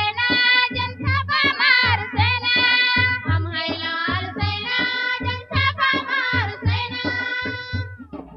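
A song sung by several voices over a held drone and a low drum beat about twice a second. The song stops abruptly near the end.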